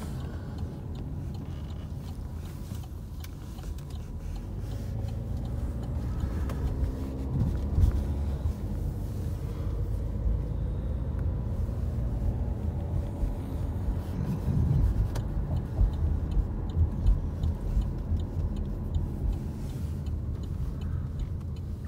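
Car cabin noise while driving: a steady low rumble of engine and tyres heard from inside the car, with a few brief louder bumps.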